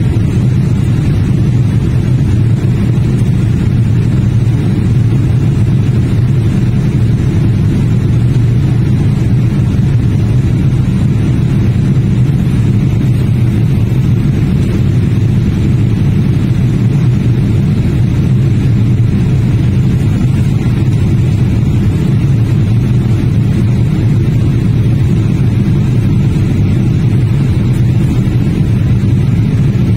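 Jet airliner cabin noise while climbing out after takeoff: the engines and the airflow past the fuselage make a loud, steady, unbroken rumble that is heaviest in the low end.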